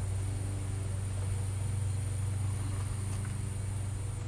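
A steady low hum with evenly spaced overtones under an even hiss.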